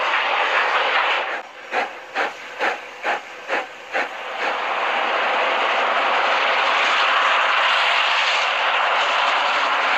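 Steam locomotive working hard: a steady hiss of steam, then six sharp exhaust chuffs about two a second, giving way to a steady rushing noise from a steam rotary snowplow blowing snow.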